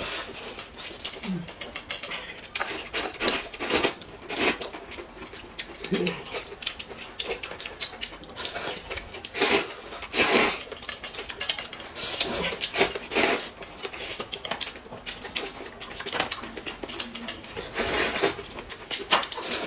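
Two people eating noodles: repeated slurping with chopsticks clicking against china plates, in many short bursts.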